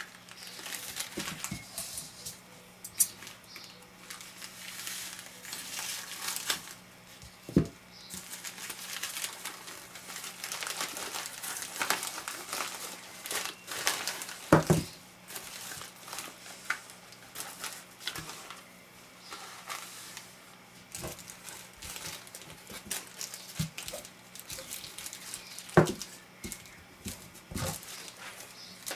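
Plastic postal mailer crinkling and rustling as it is handled and torn open by hand, with small plastic bags of screws being pulled out. A few sharp knocks stand out, the loudest about halfway through and another near the end.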